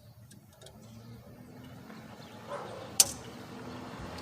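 Snap ring pliers working the retaining snap ring off a ball joint, with one sharp metallic click about three seconds in as the ring lets go. A faint steady hum runs underneath.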